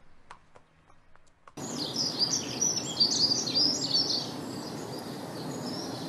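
A chorus of many birds chirping and twittering over a steady outdoor hiss, starting suddenly about a second and a half in. Before that there are only faint scattered clicks.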